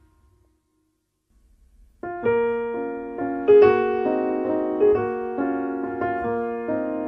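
Near silence for about two seconds, then solo piano music begins, with held chords and new notes struck about once a second.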